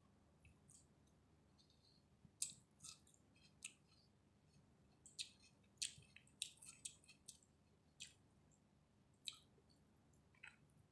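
Close-miked eating of chicken biryani: soft, irregular wet mouth clicks and smacks of chewing, bunched most thickly around the middle.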